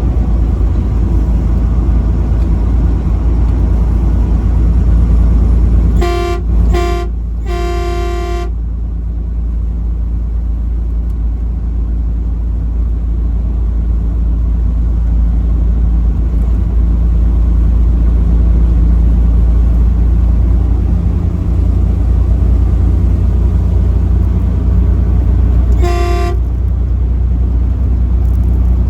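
Truck horn honking three times in quick succession, the third blast the longest, then once more briefly near the end, each a single steady pitch. Under it runs the steady low rumble of the moving truck's engine and road noise.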